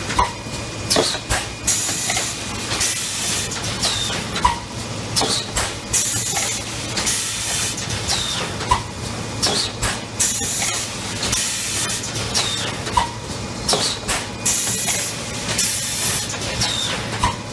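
PET bottle blowing machine running: sharp hisses of compressed air repeat roughly every second or so, some ending in a short falling whistle, with clicks and a steady low hum underneath.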